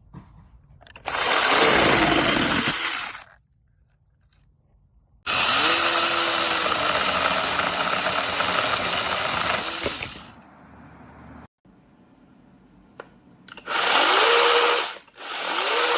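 Cordless electric mini chainsaw run in four bursts. At the start of each burst the motor whine rises as it spins up. The longest run lasts about five seconds, in the middle.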